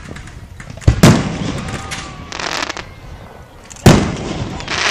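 Aerial fireworks shells bursting: two sharp booms about a second in, a crackling hiss, then another loud boom near the end followed by crackling.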